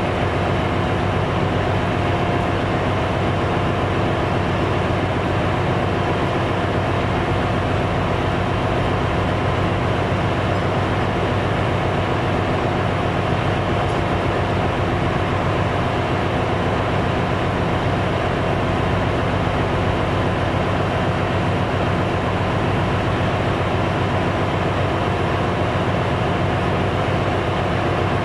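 Steady, loud drone of a ship's engine room, with auxiliary machinery running and a steady whine through it. The main diesel engine itself is stopped for a crankcase inspection.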